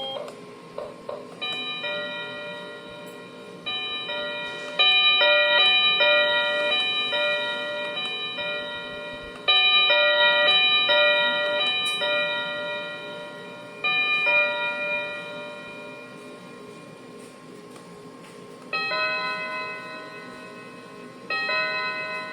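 Wireless doorbell receiver playing its electronic chime melody, set off again and again: the tune starts afresh about seven times, some cut short by the next, with later ones at a different pitch.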